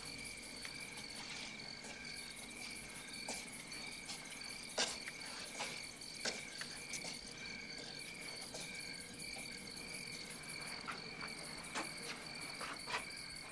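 Crickets chirping, a steady high pulsing trill. Scattered soft taps of footsteps on a paved walkway, the loudest about five seconds in.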